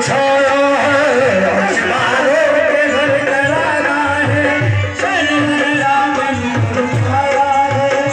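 Live qawwali music: a sustained harmonium-like melody over hand-drum beats, in an instrumental passage between sung lines.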